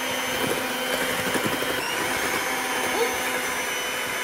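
Electric hand mixer running, its beaters churning a crumbly mixture in a mixing bowl. The motor's tone changes a little about two seconds in.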